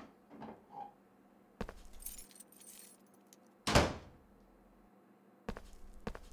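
A door opens, keys jingle for about a second and a half, and then there is one loud thump. Near the end come light, evenly spaced footsteps of flip-flops on a tile floor.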